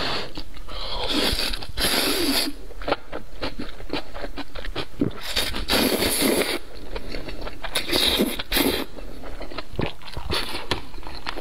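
A person slurping spicy sauced noodles, with three long sucking slurps and wet chewing and lip smacks between them, close to the microphone.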